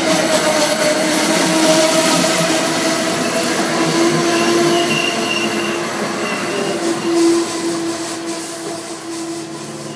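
An Amtrak train of stainless-steel Amfleet coaches rolling past close by: a loud, steady rush of wheels on rail with thin, steady wheel-squeal tones ringing over it. It fades over the last few seconds as the rear of the train moves away.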